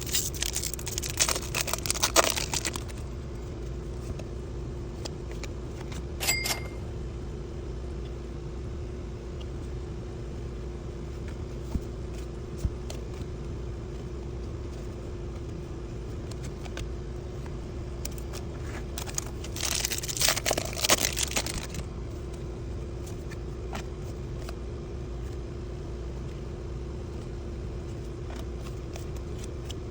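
Foil wrapper of a Bowman baseball card pack crinkling as it is torn open, in two short spells, one at the start and one about twenty seconds in, with a short squeak about six seconds in. A steady low hum runs underneath.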